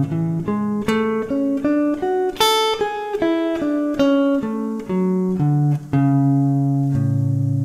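Clean electric guitar, a Gibson Les Paul, playing a melodic line of single notes built on chord tones. The run goes at three or four notes a second, then settles on two held notes, the last one ringing on near the end.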